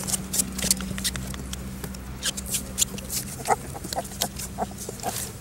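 Month-old puppies scrambling in a lined box: claws scratching and pattering on the bottom, with a few short high squeaks in the second half.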